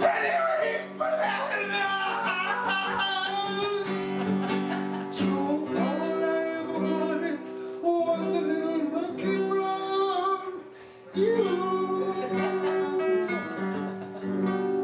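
A song sung over strummed acoustic guitar.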